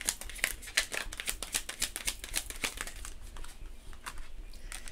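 A deck of tarot cards being shuffled by hand: a quick run of card clicks and flicks that thins out to a few scattered clicks after about three seconds.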